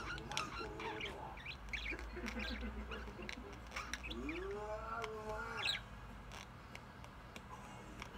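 Budgerigar chatter: soft short chirps and clicks with a longer warbled note about four to five seconds in, quieter for the last couple of seconds.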